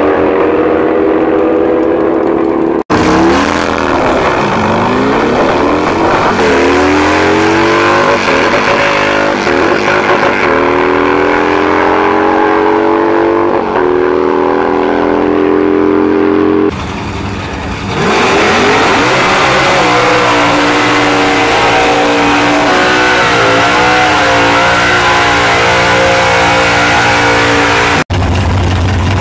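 Drag racing car engines at high revs: held steady at the start line, then accelerating hard, the pitch climbing and dropping back at each gear change, across several short clips. In the last clip a car does a burnout, its engine held high while the rear tyres spin and smoke.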